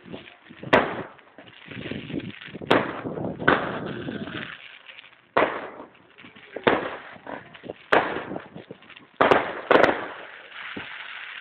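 Aerial fireworks going off: about eight sharp bangs, coming every second or so at uneven intervals, each trailing off in echoing noise.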